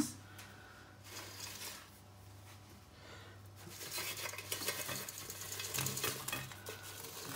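Plastic spatula scraping and clinking on a ceramic plate as chips are shovelled onto it, the clatter of chips and utensil growing busier about three and a half seconds in, over a low steady hum.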